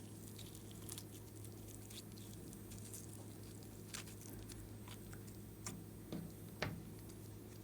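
Glossy slime being worked by hand, giving scattered small sticky clicks and pops, with a louder pop or two near the end, over a steady low hum.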